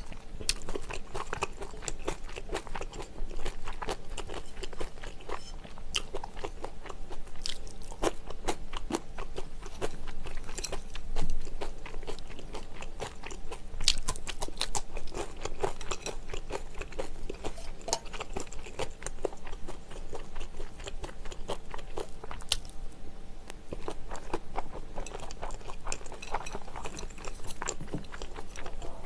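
Close-miked chewing and crunching of mouthfuls of egg fried rice and raw vegetable strips, with many small crackles and occasional clicks of a metal spoon and chopsticks.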